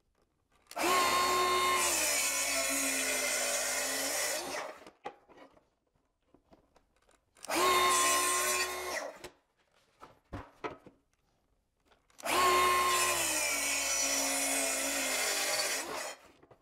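Festool HKC 55 cordless track saw cutting an oak stair tread along its guide rail at a slight 1-degree bevel. The saw runs three times, two to four seconds each, with silence between, and its pitch dips a little as the blade takes the load.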